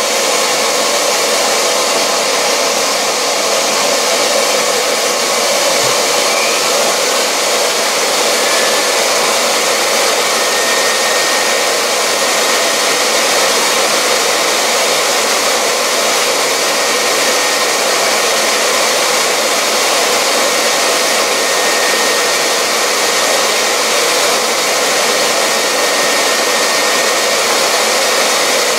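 Dumore 44 tool post grinder running at high speed while its wheel is dressed with a diamond, together with a vacuum cleaner drawing off the dressing dust: a steady, even whirring hiss that does not change.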